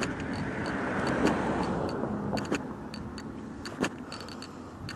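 A road vehicle passing by: tyre and engine noise swells and then fades away over the first couple of seconds, followed by a few light clicks.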